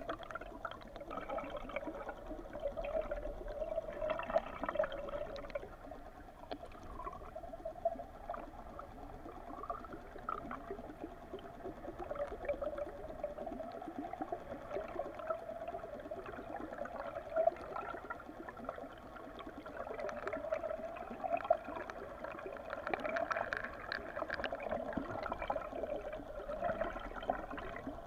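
Underwater sound of a trolled lure rig: water rushing past the submerged camera, with a steady, slightly wavering hum and many small clicks and ticks throughout.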